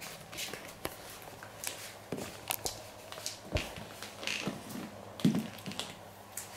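Hair scissors snipping dry hair in short, irregularly spaced clicks, with one louder dull thump about five seconds in.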